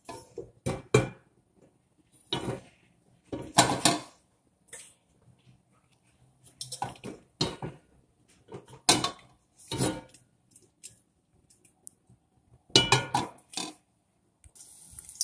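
Clinks and knocks of a metal frying pan and utensils on a gas stove grate, about a dozen separate clatters with quiet gaps between them.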